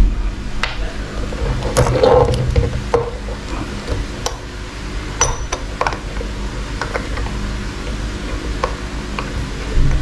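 Small irregular metallic clicks, taps and rubbing from a stainless-steel watch case back being handled and worked onto the watch case by hand, over a steady low background hum.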